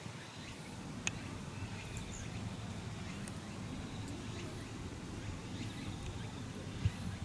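Outdoor ambience: a steady low rumble with faint high chirps repeating about once a second, a few faint bird-like calls, and a single sharp click about a second in.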